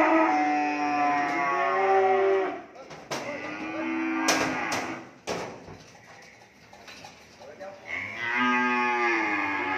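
Cattle mooing, several long calls that bend in pitch, with a quieter stretch in the middle broken by a few sharp knocks.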